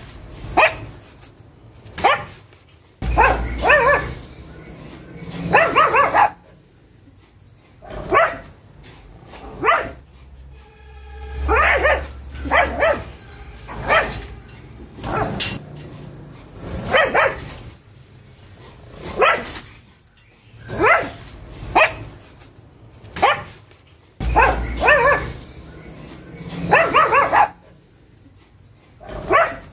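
Pug barking over and over, single sharp barks every second or two, some in quick pairs. About eleven seconds in comes one longer, drawn-out pitched cry.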